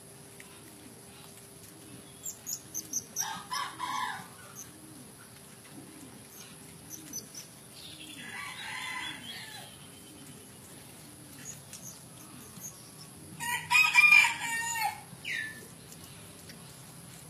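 Chickens calling in three bursts, the loudest a rooster crow near the end, with faint small-bird chirps in between.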